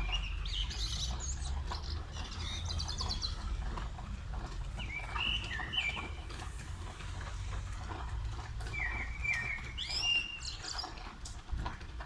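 A songbird chirping in short phrases, three bouts spaced a few seconds apart, over the patter of rain and a steady low rumble.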